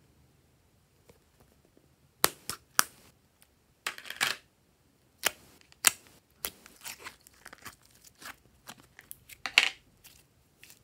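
Plastic slime container being opened, with two sharp clicks about two seconds in, then the thin plastic tub crinkling and glitter slime crackling and pulling as fingers scoop it out.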